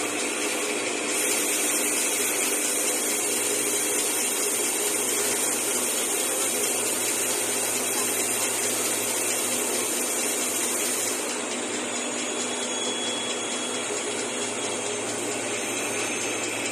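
ABS/HIPS plastic sheet extrusion line running: a steady machine drone with a low hum, and a high hiss that comes in about a second in and falls away about two-thirds of the way through.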